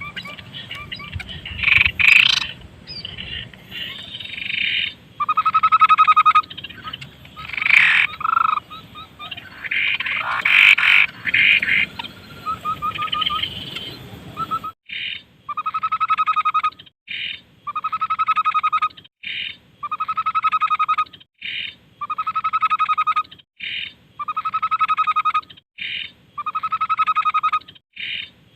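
Tepus babbler calling. Its first half is a jumble of varied calls and chatter. About halfway in, this gives way to one trilled call, about a second long, repeated about every two seconds, with a short note between each.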